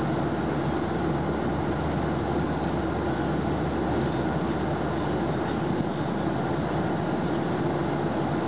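Airliner cabin noise in flight at cruising altitude: the steady sound of jet engines and rushing air, with a steady low hum under it.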